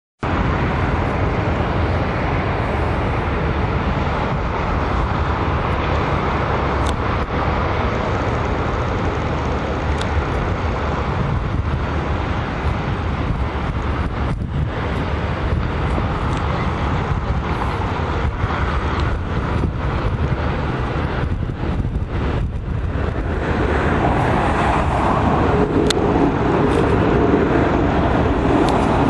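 Jet engines of a Boeing 777-300ER on final approach, a steady rush of noise mixed with surrounding road traffic, swelling louder over the last five seconds as the airliner comes closer.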